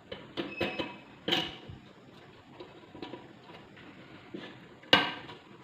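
Irregular light clicks and taps of wire connectors and small metal parts being worked off the terminals inside a rice cooker, with a sharper knock about five seconds in.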